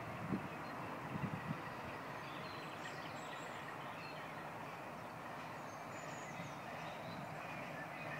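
A Class 33 diesel-electric locomotive approaching in the distance, its engine a low steady sound under the outdoor background, with birds chirping. A few soft thumps come in the first second and a half.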